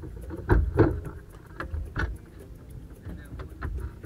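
Side-by-side UTV engine idling with a steady low rumble and a faint regular ticking, with two loud thumps about half a second and just under a second in.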